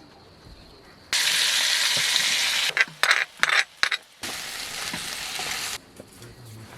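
Food frying in hot oil, a loud sizzling hiss that starts suddenly about a second in, breaks up briefly in the middle, then carries on more quietly and stops abruptly near the end.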